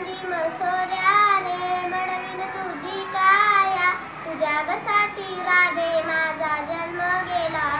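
A young girl singing a Marathi gavlan solo, in long held notes that waver in pitch.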